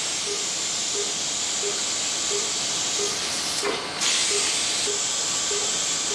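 A steady hiss of operating-room equipment during laser bronchoscopy, with a short gap about four seconds in. A patient monitor beeps evenly under it, about once every 0.7 seconds.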